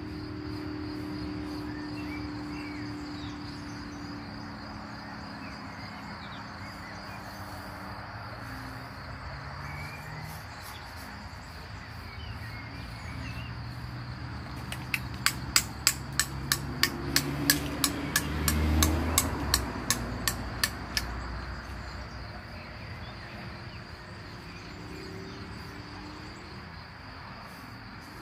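Disposable razor scraping stubble, with a run of sharp clicks about halfway through as the razor is tapped against a ceramic cup to clear the lather. A steady high insect trill runs throughout.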